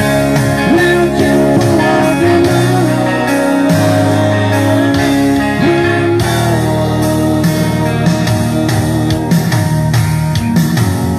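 Rock music in an instrumental passage: a guitar plays a lead line of sliding, bending notes over sustained bass notes.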